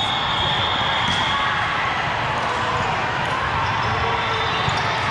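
Echoing din of an indoor volleyball hall: volleyballs struck and bouncing on several courts, with scattered voices. A high whistle is held for about a second and a half near the start.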